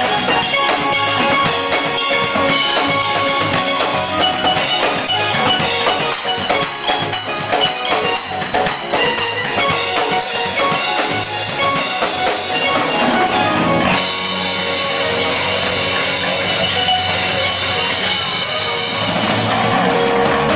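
Live rock band playing: drum kit, electric guitar and bass. About fourteen seconds in, the drumbeat stops and held notes ring on in a sustained wash of sound.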